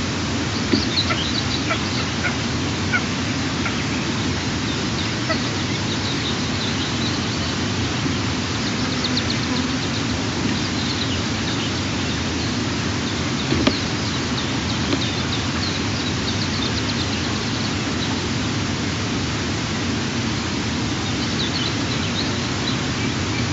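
Eastern imperial eagle chicks giving short bursts of high, rapid chirping food-begging calls every few seconds during a feeding. The calls sit over a steady wind hiss on the nest microphone.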